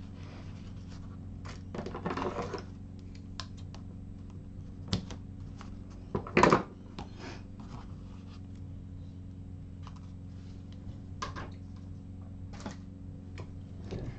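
Paper and adhesive tape being handled on a craft mat: scattered small clicks, scratches and rustles as tape is peeled and pressed onto card, with a louder rustle about six seconds in. A steady low hum runs underneath.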